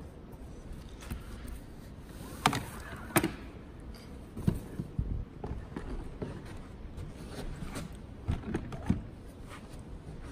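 Knocks and clunks of a Vision 60 quadruped robot's metal frame and legs being handled, lifted out of its foam-lined hard case and set down on carpet. A few sharp knocks, the two loudest between two and three seconds in, with more around four to five and eight to nine seconds in.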